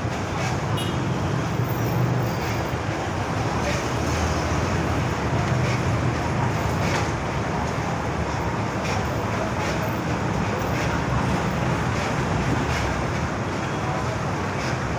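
Steady street traffic noise from passing vehicles, a continuous low hum with no let-up.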